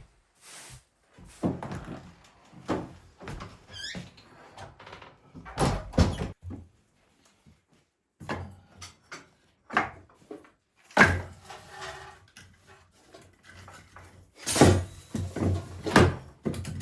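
Irregular knocks, thuds and clatter of objects being handled, with one short rising squeak about four seconds in.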